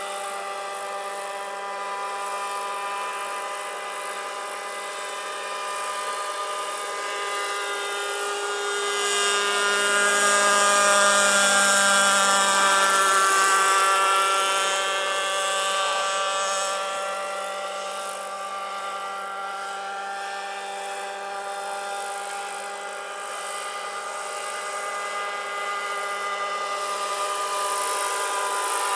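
Combustion-engined RC scale model of a Sikorsky HO3S-1G helicopter in flight, its engine and rotor giving a steady, high-pitched buzz. The buzz grows louder about ten seconds in as the model passes closest, bending in pitch, then fades and builds again near the end.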